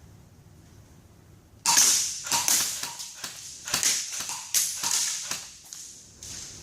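Airsoft guns firing a quick, irregular string of sharp shots, starting about a second and a half in and running for about four seconds.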